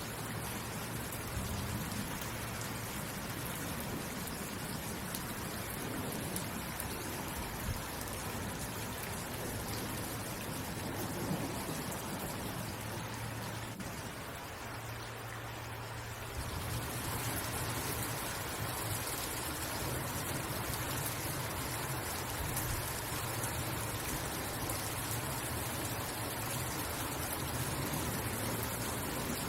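Steady rain falling, an even hiss of many drops. About fourteen seconds in it thins and softens for a couple of seconds, then comes back slightly louder.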